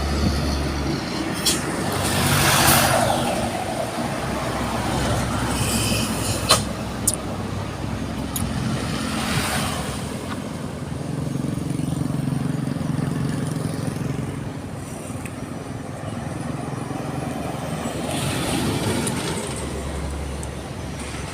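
Heavy trucks passing on a road one after another, their diesel engines and tyres swelling and fading as each goes by, with two sharp clicks about six and seven seconds in.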